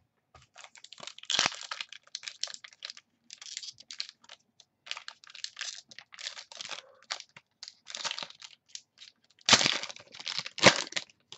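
Football card pack wrapper crinkling and tearing as it is pulled open by hand, in irregular crackles, loudest near the end.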